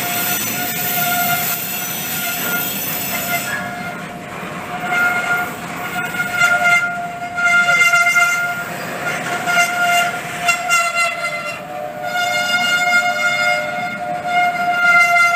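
Steel wheels of freight cars (boxcars and covered hoppers) squealing against the rails as the train rolls past, a high steady squeal that fades and returns a couple of times over the rumble and clatter of the cars.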